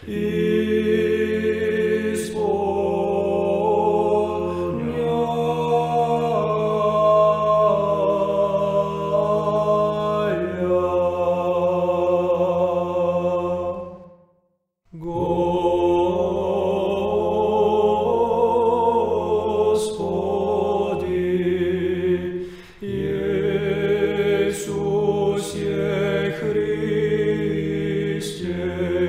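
Russian Orthodox hymn sung in Church Slavonic: a chant melody over a steady low drone note. The singing breaks off completely for about a second halfway through, then resumes.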